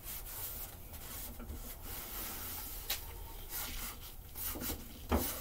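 Shop rag wiping liquid rust treatment over a rusty steel push-mower deck in irregular swishing strokes. There is a sharp click about three seconds in and a short knock near the end.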